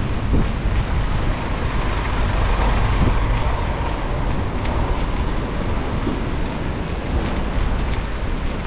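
Steady rush of wind over the microphone of a moving bicycle, mixed with street traffic noise.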